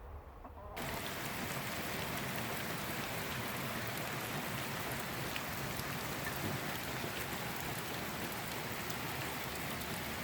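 Steady rain falling, a dense even hiss with scattered drop ticks, cutting in abruptly just under a second in.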